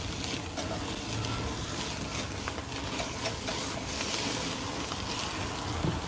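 Burger patties sizzling over a flaming charcoal fire on a small grill, with small crackles and a metal spatula working against the grate, and a soft knock near the end.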